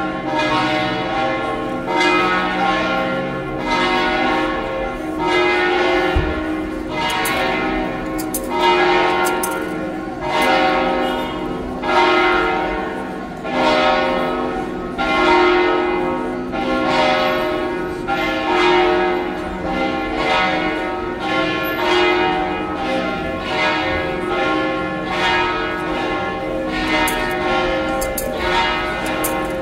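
Church bells pealing, several bells struck in turn about every second and a half, each note ringing on into the next, as the benediction is given with the Blessed Sacrament.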